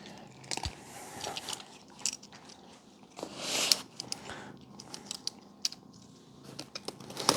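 A hard cookie being crunched and chewed: irregular small crunches and clicks.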